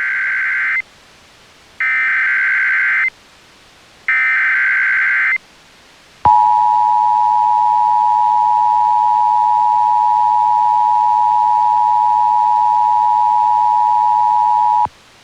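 Emergency Alert System tones: three bursts of SAME header data, about a second each and a second apart, encoding a tornado warning. They are followed by the EAS two-tone attention signal, a steady dual tone held for about eight and a half seconds that cuts off suddenly.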